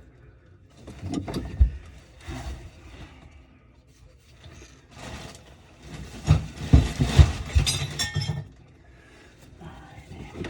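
Two spells of clinking and knocking of hard objects being handled, about a second in and again, louder, from about five to eight seconds in.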